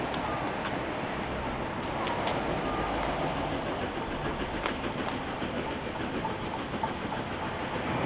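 Steam locomotive JA1275, a New Zealand Railways JA-class 4-8-2, approaching at low speed with its train of carriages: a steady, even rumble with a few faint sharp clicks.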